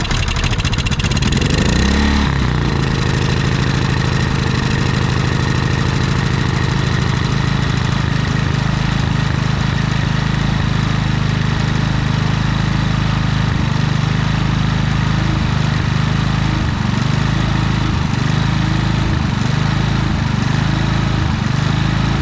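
Harbor Freight Predator generator engine running just after starting. Its revs swell once about two seconds in, then settle into a steady run with a slight wavering. The carburetor jet has just been cleaned of dirt, yet the engine is still not running right.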